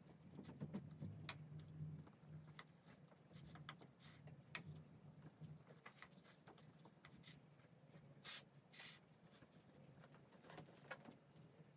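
Near silence: room tone with a low steady hum and faint, scattered small clicks.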